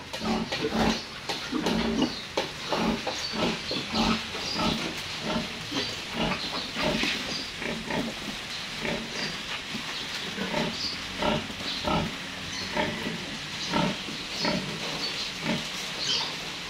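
A farrowing sow and her newborn piglets grunting in a continuous run of short calls, about two or three a second.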